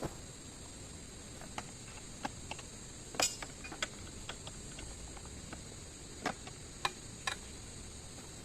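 Steady high-pitched insect chorus with scattered light clicks and taps at irregular intervals, the sharpest a little past three seconds in.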